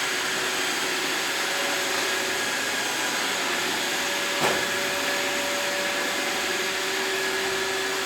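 iRobot Roomba 612 robot vacuum running, a steady whir of its suction and brush motors with a couple of held motor tones. A single short knock sounds about halfway through.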